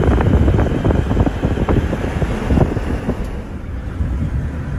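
Strong gusty wind buffeting the microphone: a loud, uneven low rumble with irregular gusts, easing a little about three seconds in. It is the wind ahead of an approaching dust storm.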